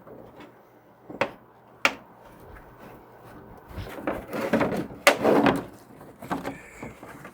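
Plastic threads being sanded by hand with a small sanding-drum bit, to open up an overly tight fitting. There are two sharp knocks, then rough rasping scrapes of grit on plastic from about four to six seconds in.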